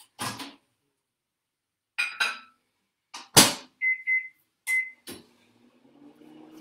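Microwave oven being loaded and started to melt butter: a few clicks and knocks with the door shut in a loud clack about three and a half seconds in, three short keypad beeps at one pitch, then the oven starts running with a low steady hum.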